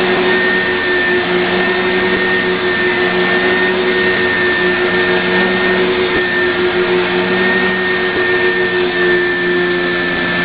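Vacuum cleaner running steadily, a constant motor whine.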